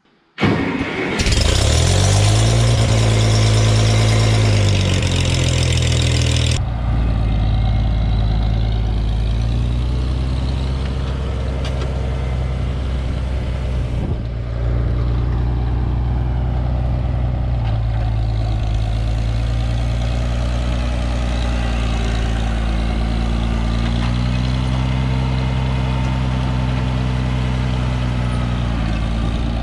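A tractor engine catches and starts about half a second in, with a harsh hiss over it for the first few seconds. It then runs steadily, its speed rising and falling slightly a couple of times.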